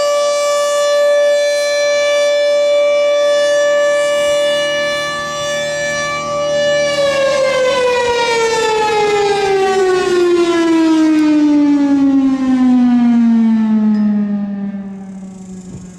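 Thunderbolt 1000A outdoor warning siren sounding its steady alert tone. About seven seconds in it shuts off at the end of the alert cycle and winds down, its pitch falling steadily, and it fades near the end.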